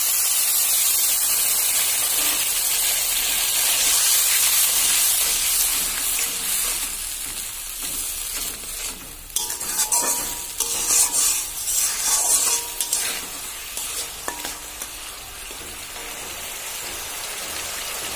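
Spice paste of onion, garlic, tomato and chilli sizzling in oil in a wok just after a splash of water, being fried down until the oil separates. The sizzle is loudest at first and gradually fades. In the middle, a metal spatula scrapes and stirs the paste against the pan in irregular strokes.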